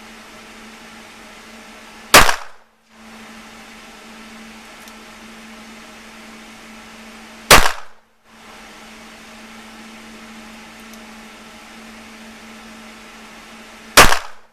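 Three single handgun shots, slow aimed fire spaced about five to six seconds apart, each a sharp crack with a short ring-out.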